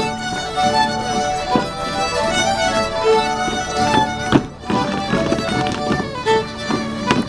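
Two fiddles playing a lively traditional dance tune together, with a few sharp knocks cutting through, the loudest a little past the middle.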